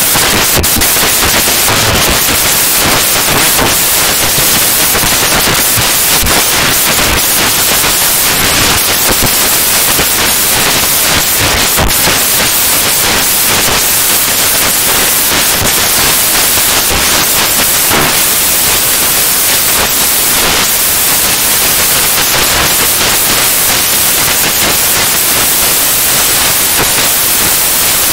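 Loud, steady static-like hiss, strongest in the high end, with no tone or rhythm in it.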